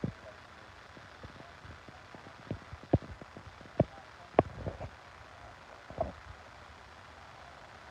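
A few sharp knocks and taps over a steady background hum, the loudest clustered around the middle.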